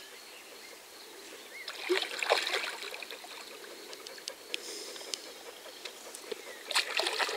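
Water splashing in two short bursts, about two seconds in and again near the end, as a hooked carp thrashes at the surface during the fight.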